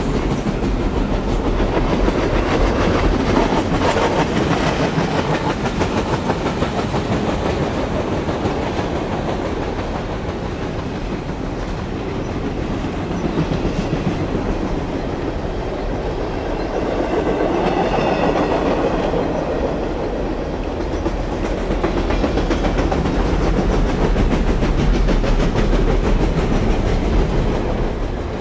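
Union Pacific intermodal freight train's loaded container well cars rolling past, steel wheels clattering over the rail in a steady clickety-clack. The sound begins to fade near the end as the last cars go by.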